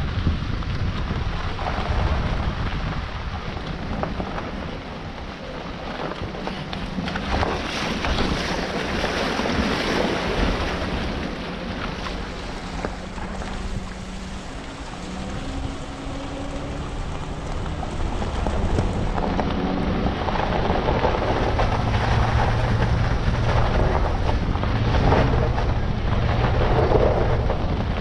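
A vehicle's engine running as it drives along a gravel road, with tyres on the gravel and wind buffeting the microphone. The engine note shifts in pitch as it goes, and the noise gets louder in the second half.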